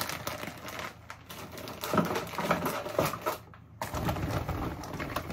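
Plastic food packaging and a woven plastic shopping bag rustling and crinkling as groceries are handled and taken out of the bag, with a few light knocks.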